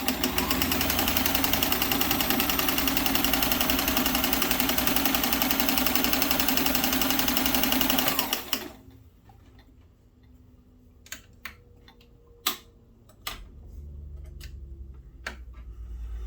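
Vintage Sears Kenmore 158.1703 sewing machine running steadily at speed with a 36149 monogrammer attachment, stitching a small letter V, then stopping about eight seconds in. A few sharp clicks and taps follow.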